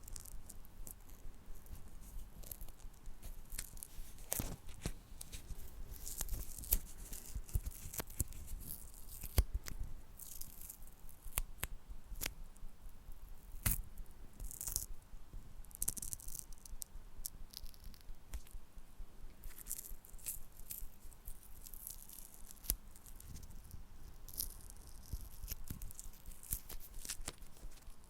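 Close-miked handling of small wooden objects: irregular sharp taps and clicks mixed with short scratchy, rustling scrapes.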